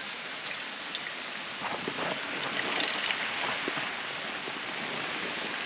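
Steady rain falling with a constant hiss, with a few separate drops tapping.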